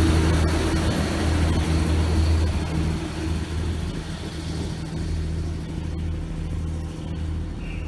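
Class 153 diesel multiple unit departing, the steady low drone of its underfloor Cummins diesel engine fading as the unit draws away.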